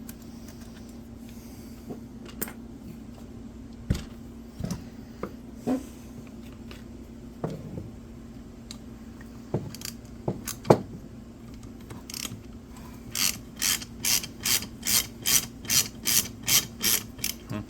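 Hand tools working on a McCulloch 5-10E chainsaw: scattered metal clicks and taps, then from about twelve seconds in a steady run of ratcheting clicks, about three a second. A faint steady hum lies underneath.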